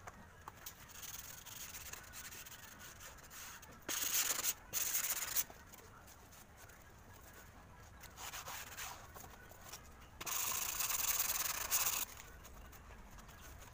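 Adhesive tape being pulled off a roll while an RC plane's foam wing is worked on. Two short loud tearing stretches come about four seconds in and a longer one of nearly two seconds near ten seconds in, with fainter rubbing between them.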